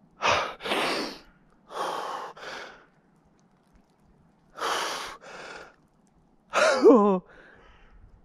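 A man's deep gasping breaths, three in-and-out pairs, the cold-shock breathing of someone immersed to the shoulders in freezing water. Near the end comes a wavering voiced groan that falls in pitch.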